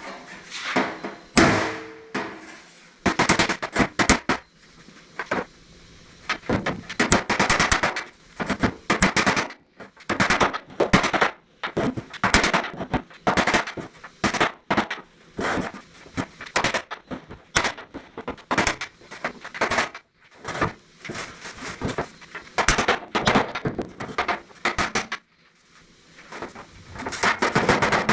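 Hammer blows on the steel of a 1959 Chevrolet step-side truck bed backed by a sandbag, beating out dents. The blows come in irregular runs of sharp strikes with short pauses between them.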